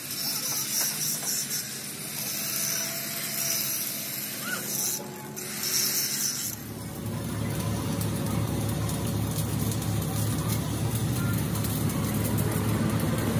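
Electric angle grinder grinding the steel end of a truck rear axle housing, a dense high-pitched hiss that breaks off briefly about five seconds in. About six and a half seconds in the grinding stops abruptly and a steady low machinery hum with rumbling noise takes over.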